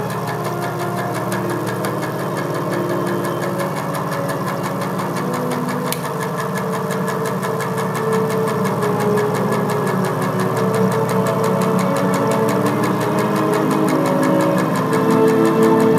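A steady, machine-like drone with a fast, even pulse underneath and several held tones above it that shift in pitch. It grows slightly louder near the end.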